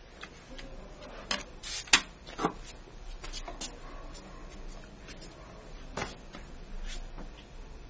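Scattered sharp clicks and light knocks, about seven in all, the loudest about two seconds in, over a low steady hum.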